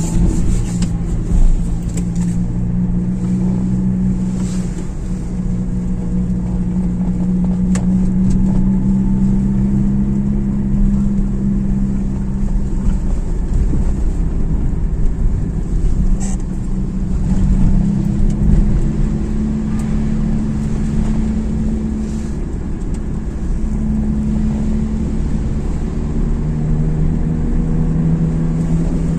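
Car running with a steady low drone whose pitch drifts slowly up and down with speed: the hum of a worn wheel hub bearing.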